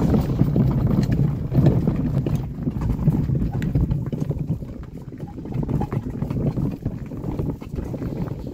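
Wheels of a hand-pulled wagon rolling over a rough dirt and gravel road: a steady low rumble with dense crunching ticks, easing off after about three seconds.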